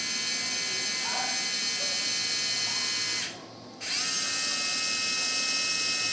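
Surgical power pin driver whining steadily as it drives a 0.054-inch pin into a dog's tibia. It stops for about half a second around three seconds in, then winds back up and runs on.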